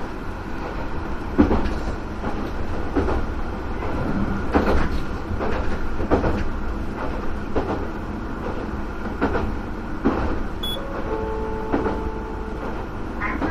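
Flower 2000-type diesel railcar running at speed, heard from inside: a steady engine and running drone, with the wheels clicking over rail joints about every second and a half.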